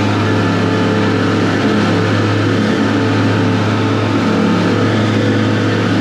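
Motorboat engine running steadily under way: a constant low drone with a steady hiss over it.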